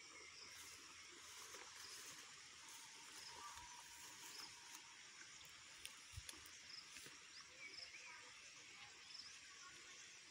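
Near silence: faint outdoor ambience with a steady insect hum and a few soft bird chirps.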